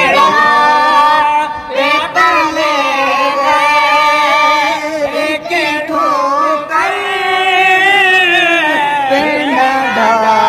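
A young boy singing a devotional Urdu song solo, drawing out long, wavering, ornamented notes.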